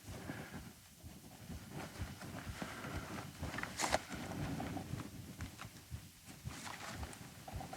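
Footsteps, an irregular run of soft thumps and small clicks, with one sharper click about four seconds in.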